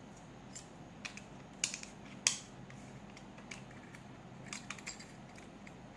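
Small sharp plastic clicks and taps from a handheld plastic luggage scale being handled, its battery cover snapped back into place over the AAA batteries. The clicks are scattered, the loudest a little over two seconds in, with a few more near the end.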